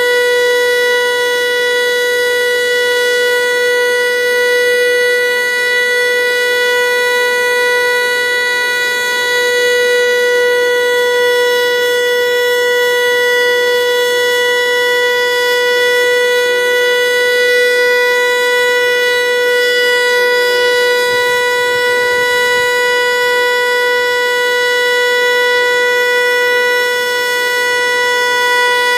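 Federal Signal Eclipse 8 outdoor warning siren sounding a loud steady tone, holding one pitch with slight swells in loudness.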